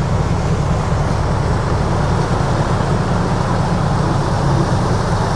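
Steady wind buffeting and rushing across the microphone on the open flybridge of a slow-moving motor yacht, a heavy low rumble with a hiss above it and no separate events.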